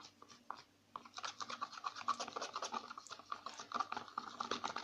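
White glue being stirred briskly in a bowl with a small utensil: rapid scraping strokes, several a second, starting about a second in.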